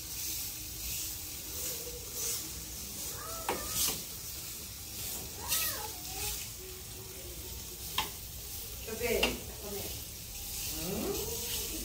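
Beef rump cap sizzling on a grate over hot charcoal, a steady hiss, while a knife scores its fat cap, with scraping and a few sharp clicks of the blade on the grate; the loudest click comes about eight seconds in. A few short, high-pitched, voice-like cries come and go over it.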